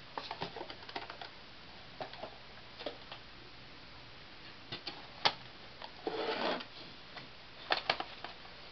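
Box set packaging and disc cases being handled and moved on a table: scattered light clicks and taps, a sharper knock about five seconds in, a brief rustle or slide about six seconds in, and a quick run of clicks near the end.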